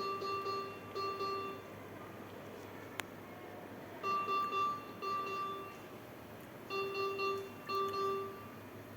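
Hospital medical-equipment alarm beeping: short electronic tones in pairs, repeating every few seconds, typical of the alarm on a newborn's ventilator or bedside monitor. There is a single sharp click about three seconds in.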